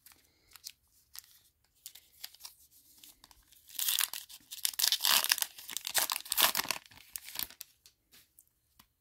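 A 2023 Topps Heritage High Number baseball card pack being torn open by hand. A few light handling clicks come first, then the wrapper crinkles and tears loudly for about four seconds from around the middle.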